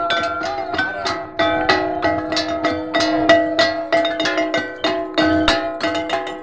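Timorese hand gongs (tala) and a babadok drum beaten together in a quick, steady rhythm of about three to four strikes a second. The gongs' metallic ringing tones overlap from stroke to stroke: the gong-and-drum music of a tebe dance.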